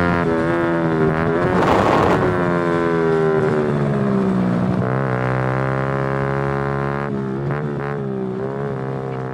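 Honda Super Cub 50 race bikes' small single-cylinder four-stroke engines running hard on an OUTEX race exhaust, several bikes together. The pitch wavers and drops as the bikes slow for a corner, with a brief rush of noise about two seconds in.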